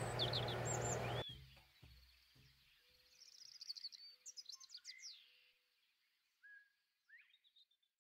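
Faint room noise with a low hum that cuts off suddenly about a second in. Faint bird chirps and twitters run on behind it and after it, most of them in the middle of the stretch.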